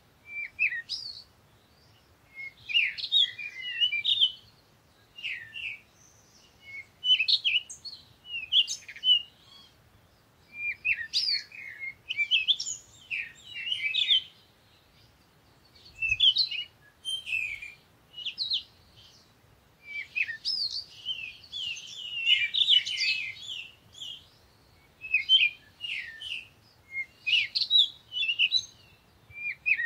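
Small birds chirping and twittering in quick, high bursts with short pauses between them.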